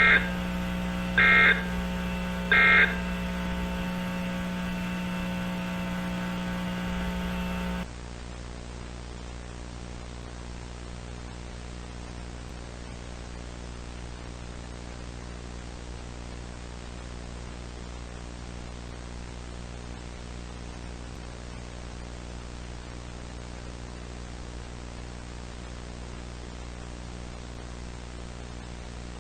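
Three short bursts of Emergency Alert System end-of-message data tones, about 1.3 seconds apart, mark the end of the flash flood warning broadcast. They sit over a steady electrical hum with buzzing overtones. The hum cuts off about eight seconds in, leaving a steady low static hiss.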